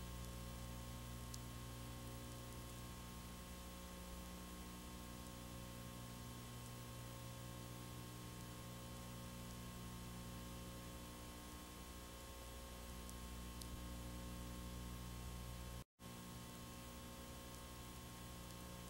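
Faint steady electrical hum with hiss, the background noise of the recording, with no other sound; it drops out to dead silence for an instant about 16 seconds in.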